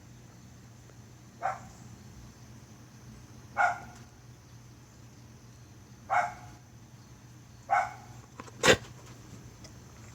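A dog coughing in short single hacks, five times about two seconds apart, the last one the loudest.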